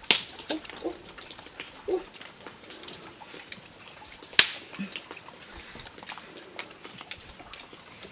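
Dry wooden sticks being handled and laid onto an earth-mound stove, with scattered sharp clacks of wood on wood. The loudest clack comes about four and a half seconds in. A few short, low grunt-like sounds come in the first two seconds.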